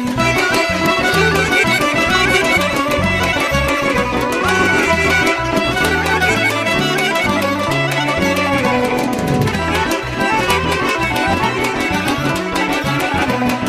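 Instrumental passage of a folk-style pop song: a melody line over a steady bass pattern and beat.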